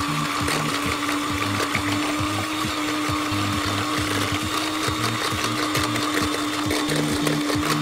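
Electric hand mixer running steadily at one speed, its beaters whisking raw eggs in a glass bowl, with a steady motor whine. Background music with a steady beat plays underneath.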